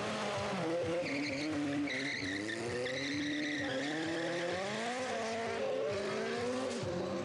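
Sport motorcycle engine revving up and down repeatedly during stunt riding, with tyre squeal from about a second in.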